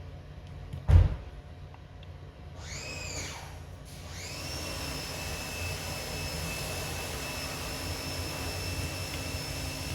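A sharp knock about a second in. Then compressed-air equipment in the shop behind gives a short whine that rises and falls, and from about four seconds on runs as a steady high-pitched whine.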